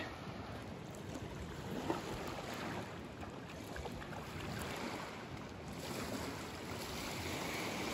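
Small lake waves lapping on a sandy beach: a steady, even wash of water with a little wind.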